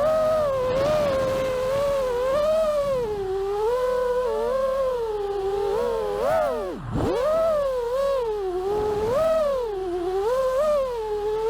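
FPV quadcopter's brushless motors and propellers whining, the pitch wavering up and down with the throttle. About seven seconds in the pitch drops away almost to nothing and then climbs sharply back, a throttle chop and punch-out.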